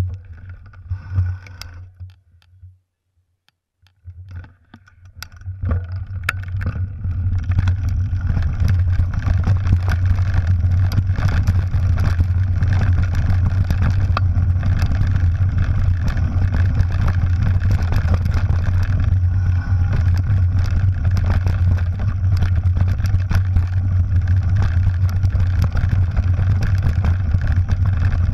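Wind rushing over a handlebar-mounted camera's microphone, mixed with rumble and rattle from a mountain bike rolling down a rough dirt trail. It is nearly silent about three seconds in, builds from about four seconds, and holds steady and loud from about seven.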